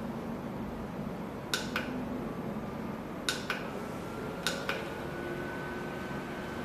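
Small battery-powered oscillating table fan running with a steady rush of air and motor noise. Three sharp double clicks come at roughly one-and-a-half-second intervals, and a faint steady whine sets in after the last one.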